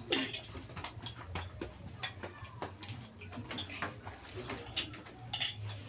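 Metal spoons clicking and scraping on plates as several people eat, in scattered irregular ticks over a low steady hum.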